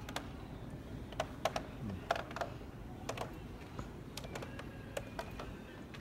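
Irregular sharp clicks and taps over a low steady murmur of a large room: footsteps on a hardwood gallery floor, loudest about one and a half to two seconds in.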